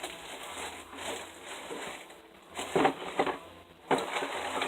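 Objects being handled and moved about: rustling with a few short knocks and clicks, a cluster about two and a half to three and a half seconds in and another near the end.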